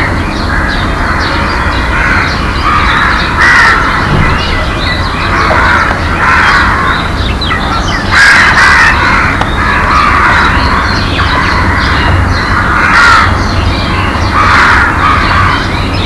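Crows cawing over and over, harsh calls about every second or two, with smaller birds chirping in the background over a steady low rumble.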